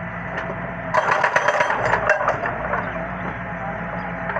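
Doosan DX140W wheeled excavator's diesel engine running steadily, with a burst of clattering, cracking stone starting about a second in and lasting about a second and a half as the machine works the rock.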